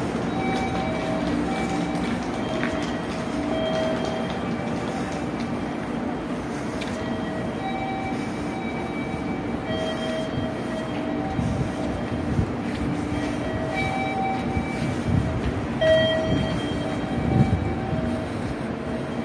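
A JR Kyushu electric commuter train standing at the platform with its doors open, its onboard equipment running with a steady hum. Short, faint tones come and go in the background.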